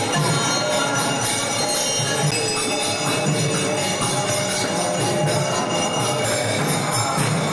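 Kirtan music: continuous jingling of kartals (small hand cymbals) over a low drum beat about once a second.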